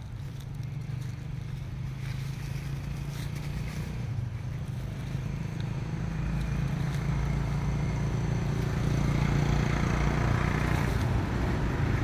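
A motor vehicle's engine running with a steady low hum, growing steadily louder as it approaches.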